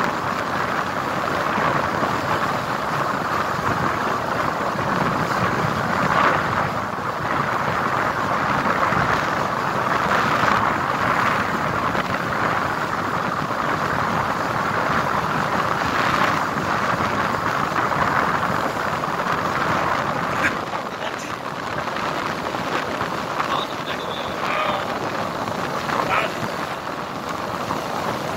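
Steady rushing of a river in flood, its muddy current running fast and churning. A few faint short tones come in near the end.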